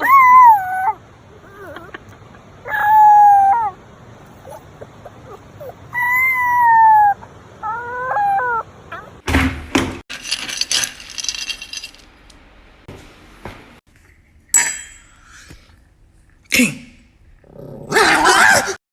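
An animal calling: several pitched cries about a second long, each falling in pitch, over the first eight seconds, followed by short noisy bursts and a louder noisy rush near the end.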